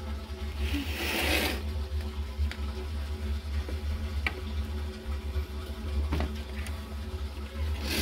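Steady low electrical hum, with a short rustle about a second in and a few faint clicks later.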